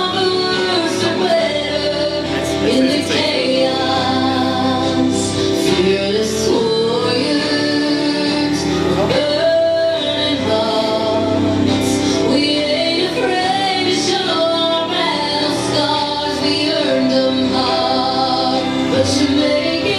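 A song playing: a woman singing over instrumental accompaniment.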